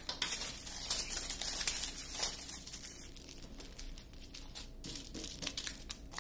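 Small plastic bags of diamond-painting drills crinkling as they are handled, busiest in the first few seconds.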